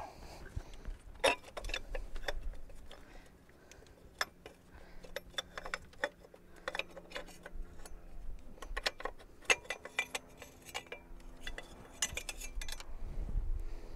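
Irregular metallic clinks and knocks as the metal thermostat housing and water pipe of a Toyota 3.0L V6 are worked loose by hand and pulled out past the hoses and brackets, with two louder knocks, about a second in and past the middle.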